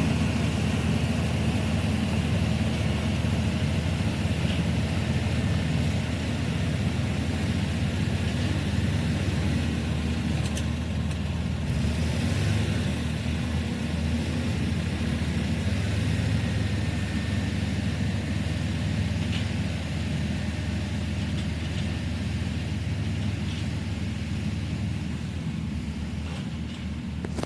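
Komatsu D85E-SS bulldozer's diesel engine running steadily.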